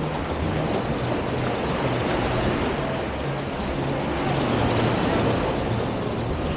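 Sea surf washing on a beach, a steady rushing noise that swells a little and eases, with wind on the microphone.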